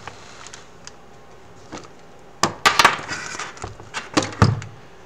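Handling noise from a VR headset being worked with the hands: cables and the fabric head strap rustling, with a cluster of sharp plastic knocks and clicks about halfway through.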